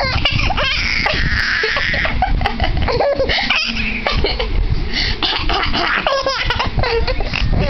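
A six-month-old baby laughing hysterically in repeated bursts, set off by a woman's fake coughs between the laughs.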